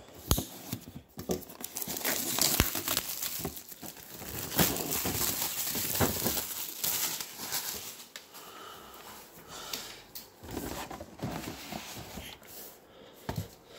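Plastic shrink-wrap on a cardboard box being slit with a box cutter and pulled off, crinkling and tearing, with scattered clicks and knocks as the box is handled.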